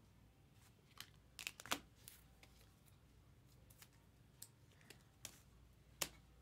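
Trading-card pack wrappers being torn open and cards handled: faint crinkling with scattered sharp clicks. The loudest cluster comes about a second and a half in, and another sharp click comes near the end.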